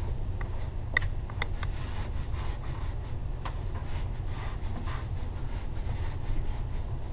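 A steady low rumble throughout, with light rustling and a few short squeaks or clicks, mostly in the first second and a half, as Roxul Safe'n'Sound stone-wool insulation is handled and pushed up between ceiling joists.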